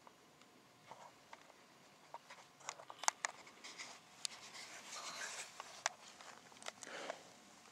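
Close handling noise of a hand-held camcorder as it is swung around: a run of faint clicks and rustles, busiest in the middle and near the end.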